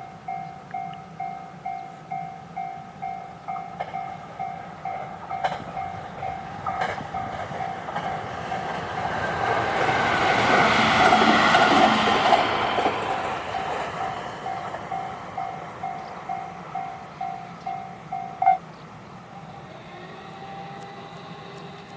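Level-crossing warning bell ringing at about two strikes a second while a train runs over the crossing, its rumble swelling to a peak about ten to twelve seconds in and then fading. The bell stops abruptly with a sharp clunk about eighteen seconds in.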